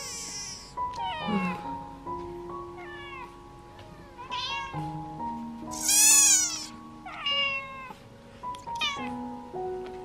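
Eleven-day-old kitten mewing during syringe feeding: about seven thin, high cries, each falling in pitch, the loudest about six seconds in. Soft background music plays under it.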